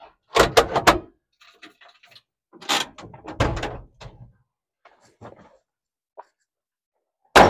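A run of knocks and clunks: three close together about half a second in, a longer cluster around three seconds, a few light ticks, then one sharp bang near the end, the loudest of them.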